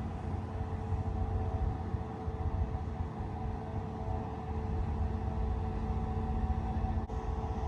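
Large cruise yacht's engines and machinery: a steady low rumble with a constant hum above it, dipping briefly about seven seconds in.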